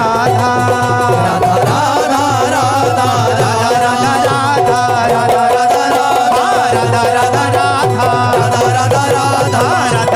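Devotional music: damru drums played in a fast, continuous roll, with singing voices and a steady held tone over them.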